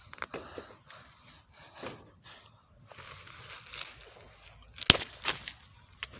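Dry twigs and brush crackling and rustling, with two sharp snaps close together about five seconds in.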